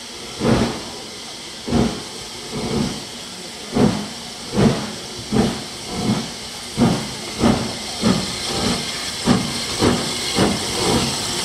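Maunsell S15 4-6-0 steam locomotive No. 847 starting away under steam, its two-cylinder exhaust beats quickening from about one a second to about two a second. A steady hiss of steam from the cylinder drain cocks runs under the beats.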